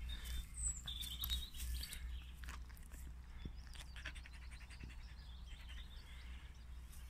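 Birds chirping faintly, a few short high notes in the first two seconds, over a steady low rumble, with faint ticking rustles in the middle.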